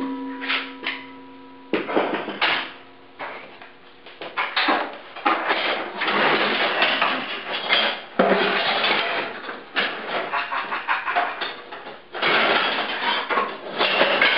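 Scrap metal pieces and bars clanking and rattling against each other in irregular bursts as they are rummaged through and pulled out of a bucket by hand. A struck piece of metal rings with a steady tone for the first couple of seconds.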